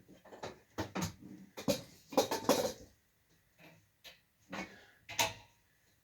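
Irregular knocks, clicks and clatter of hard objects being handled, shifted and set down, with short quiet gaps in between.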